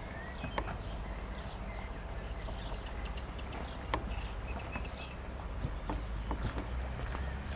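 Outdoor pond ambience: birds chirping in short, scattered calls, with occasional sharp clicks over a low steady rumble.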